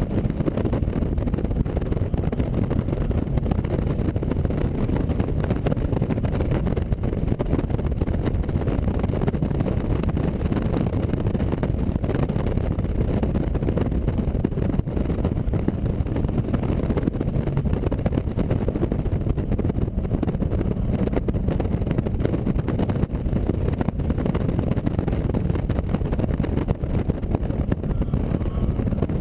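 AC Cobra Mk IV's V8 engine running steadily, heard from on board with wind buffeting the microphone.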